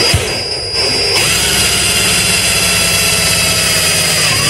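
Power drill running, its bit drilling straight through the thin metal outer barrel of a Novritsch SSG10 airsoft rifle. A steady high whine, with a deeper hum joining about a second in.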